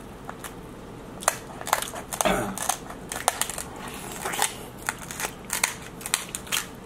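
King crab leg shells being cracked and broken open: a run of sharp irregular snaps and crunches that starts about a second in, the loudest crack coming at about two seconds.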